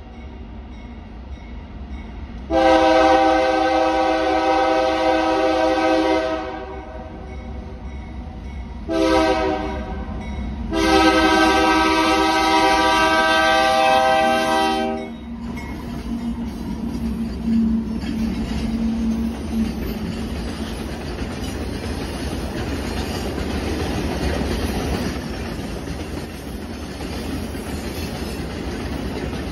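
Diesel freight locomotive horn sounding a long, a short and a long blast for a grade crossing. The locomotives then rumble past with their engines running, followed by ore hopper cars rolling by with steady wheel-on-rail noise and clickety-clack.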